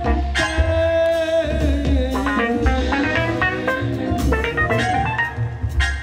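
Live jazz band playing: a melody line of held and moving notes over a steady double bass and percussive hits.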